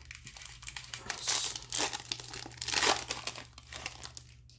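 A trading-card pack wrapper being torn open and crinkled by hand, in irregular crackling handfuls, loudest just over a second in and again near three seconds.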